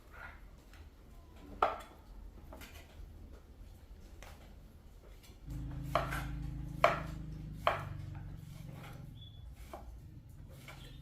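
A few sharp knocks: one about a second and a half in, then three more about a second apart after a low steady hum sets in near the middle.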